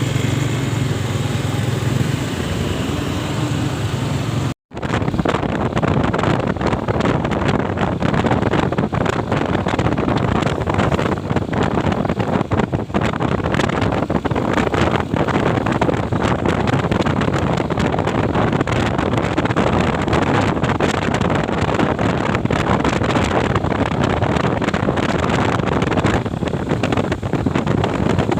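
Motorcycle on the move with wind buffeting the microphone. A steady low engine hum in the first few seconds breaks off at a brief dropout about four and a half seconds in, after which rough, gusting wind noise dominates.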